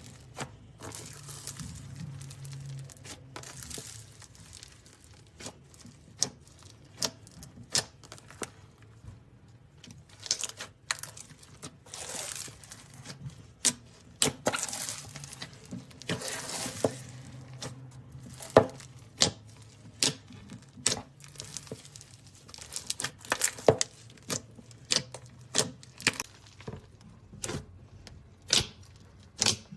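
Slime being squeezed and poked by hand: irregular sharp clicks and pops, with longer crackly, crinkling stretches a few seconds in and again around the middle.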